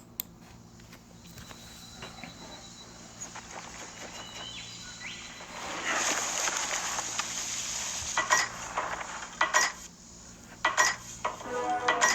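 Opening of a music video soundtrack, re-recorded through a phone with thin, hissy sound. A faint hiss swells about halfway in into a louder rushing noise, cut by a few sharp clicks near the end.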